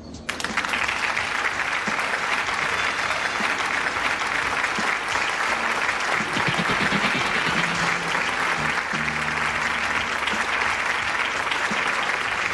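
Crowd applause, starting suddenly and cutting off abruptly, with faint music underneath.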